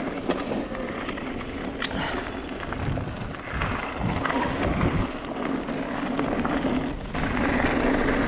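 Yeti 160e electric mountain bike ridden down a gravel trail: steady rolling tyre noise over the gravel with scattered clicks and rattles from the bike. The sound dips briefly about seven seconds in, then comes back louder.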